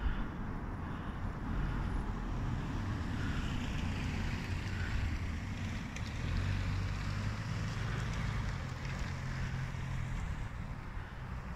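Low rumble of wind on the microphone, with a car engine joining about halfway through as a car drives along the street.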